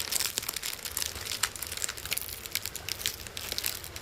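Crinkly plastic snack packet being handled and opened, a dense run of irregular sharp crackles and rustles.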